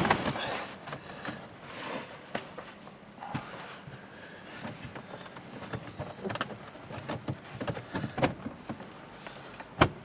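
Scattered light clicks, taps and rustles of hands working on a car's interior trim around the footwell, with a sharp click at the start and another near the end.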